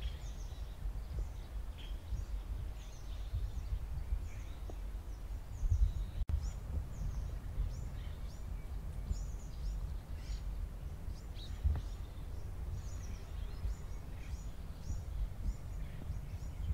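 Small birds chirping, many short high chirps one after another, over a low steady rumble. The sound drops out for an instant about six seconds in.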